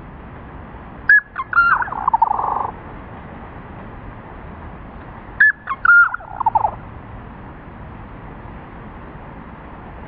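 Black-capped chickadee scolding call played back in slow motion, so it sounds deep and drawn out. It is given twice: each call is a run of falling notes, and the first ends in a long buzz.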